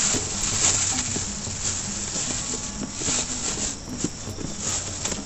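Thin black plastic bag rustling and crinkling as hands rummage in it and pull out a plastic container, with irregular small crackles throughout.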